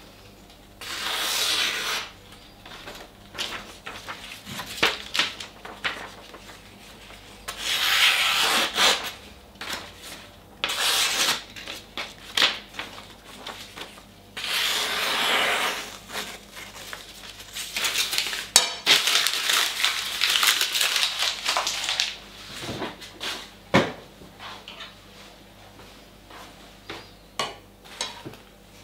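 A sheet of printed paper being sliced through by a freshly sharpened Global chef's knife held against the edge in the air, a paper-cutting test of sharpness. There are several swishing cuts, each lasting a second or so, with paper rustling and small handling clicks between them.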